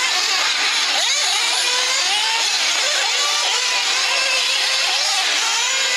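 Several 1/8-scale radio-controlled off-road cars racing together, their motors' overlapping whines rising and falling in pitch as they accelerate and slow through the corners.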